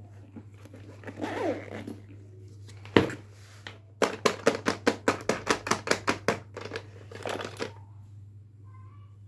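A zippered fabric vanity case is opened, with a short zipping sweep about a second in and one sharp knock about three seconds in. After that comes a quick run of about a dozen clicks, roughly five a second, and rustling as hands move the plastic toys and dolls inside the case.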